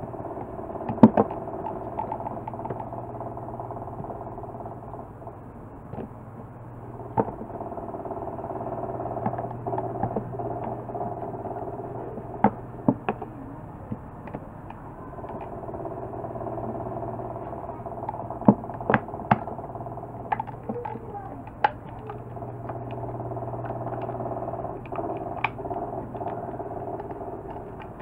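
Clicks, taps and knocks of hand-held hair dryer plastic housing parts being fitted together, loudest about a second in and near the two-thirds mark, over a steady low hum that swells and fades.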